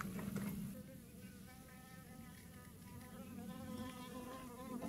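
A flying insect buzzing near the microphone: a faint, steady hum whose pitch wavers slightly, starting about a second in.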